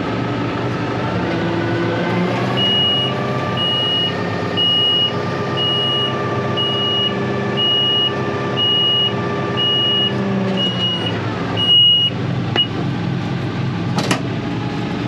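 Tractor engine running, picking up speed a little over a second in and dropping back near the end. A high electronic beep repeats about once a second for some ten seconds over it. A sharp click comes near the end.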